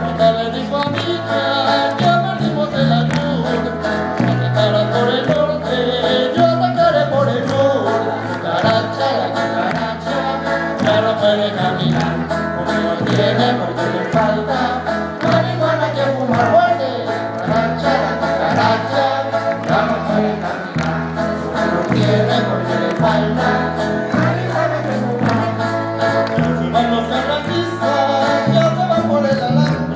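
Live band music: accordion melody over guitars and percussion, with a bass that steps back and forth on a steady beat and rhythmic hand clapping.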